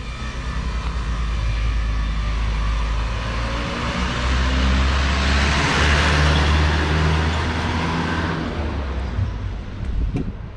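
Road traffic: a motor vehicle's engine drone and tyre noise swell as it passes close around the middle, then fade.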